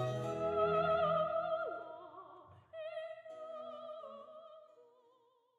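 Classical background music: an operatic voice holds long high notes with vibrato. The music drops briefly about two and a half seconds in, comes back, and fades out by the end.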